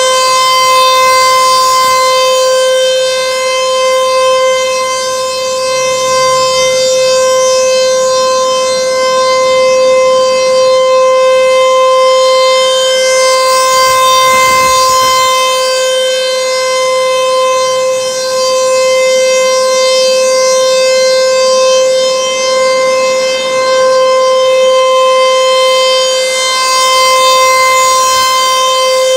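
American Signal ASC T-128 rotating outdoor warning siren sounding a steady single tone during a siren test. The tone holds at one pitch while its loudness slowly swells and fades, brightest about halfway through and again near the end.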